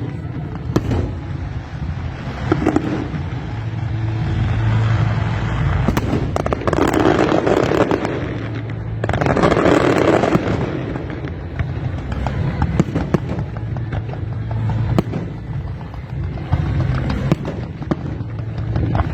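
Fireworks going off: many sharp pops and crackles with occasional bangs, and two louder surges of hissing about 7 and 10 seconds in.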